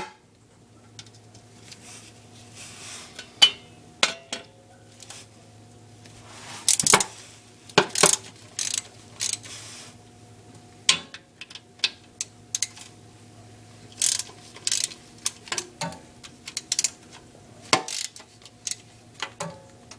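Ratchet wrench clicking in irregular strokes as the oil pan bolts of a 1994 Jeep Wrangler's six-cylinder engine are backed out, with a faint steady hum underneath.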